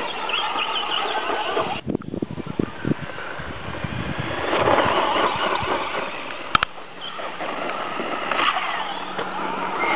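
Losi XXX-T electric RC truck's 10-turn motor whining as it is driven and throttled on sand, its pitch rising and falling.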